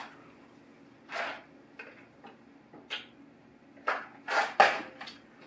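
A person drinking from a plastic cup, close to the microphone: a few short sips and swallows with soft clicks between, loudest in a cluster about four to five seconds in.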